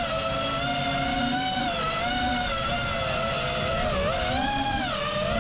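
FPV quadcopter's motors and propellers whining, the pitch rising and falling continually with the throttle, over a rushing noise.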